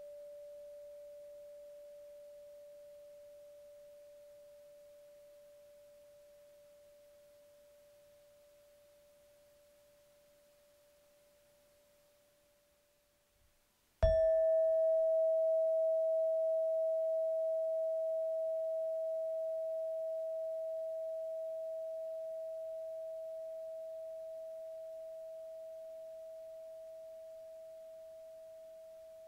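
Chakra chimes (tuned metal tubes): one chime's pure tone slowly dies away, then about halfway through a mallet strikes the next, slightly higher chime, which rings out with a long, slowly fading sustain.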